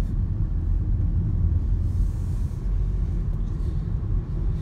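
Steady low rumble of a car driving on a wet road, heard from inside the cabin, with a faint brief hiss about halfway through.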